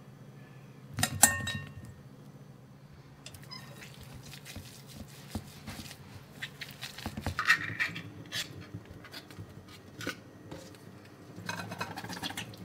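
A sharp knock with ringing against a glass bowl about a second in, then boiled potato chunks being mashed in the glass bowl with a plastic potato masher: soft squishing and small taps. In the second half a pull-tab tuna can is peeled open over a stainless steel sink, a louder burst of metal scraping and clatter.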